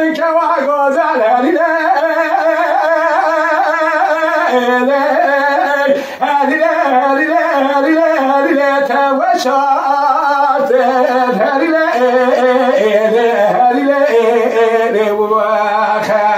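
A man singing Kurdish dengbêj, unaccompanied, in a high, strained voice. He holds long notes with quick wavering ornaments and takes a brief breath about six seconds in.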